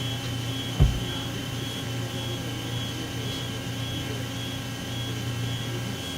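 Awea SP3016 double-column machining center running with a steady mechanical hum, a faint high tone pulsing about twice a second. A single low thump about a second in.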